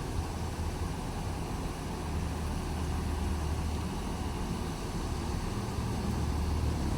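Large bus's diesel engine idling with a steady low hum.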